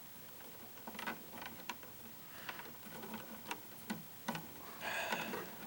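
Electrical wires in a switch box being bent and straightened by hand: scattered light clicks and ticks, with a short scraping rustle near the end.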